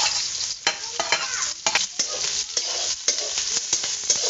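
Sliced onions sizzling in hot oil in a kadhai as they are tipped in and stirred, with a metal ladle scraping and clinking against the pan throughout.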